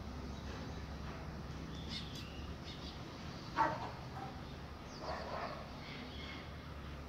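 Two short animal calls, the first and louder about three and a half seconds in, the second a second and a half later, with faint high bird chirps over a steady low background hum.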